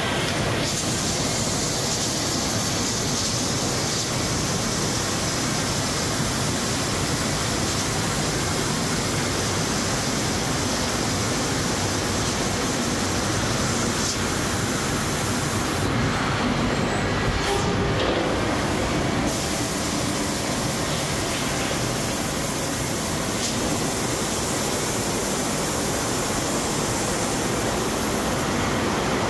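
HOMAG Centateq N-700 nesting CNC machine running: a steady, even machine noise without a clear tone, its highest hiss thinning briefly about two-thirds of the way through.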